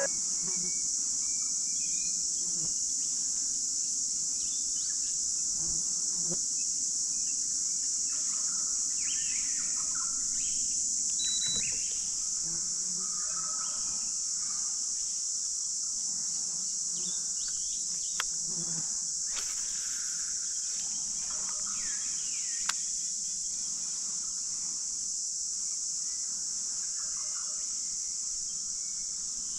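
Steady, high-pitched insect chorus with scattered bird calls over it, and two short sharp ticks in the second half.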